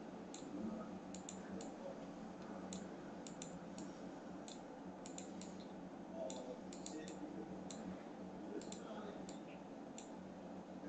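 Computer mouse clicking, about twenty sharp clicks at an irregular pace with some in quick pairs, over a faint steady room hum.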